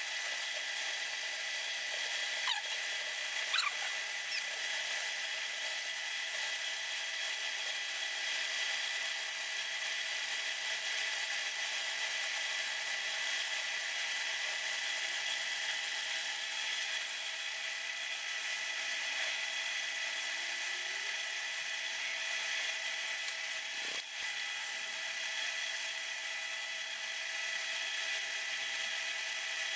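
A high-pitched electric power tool runs steadily, a constant whine of fixed tones with no speed changes. There are a few faint ticks early on and one sharp tick about two-thirds of the way through.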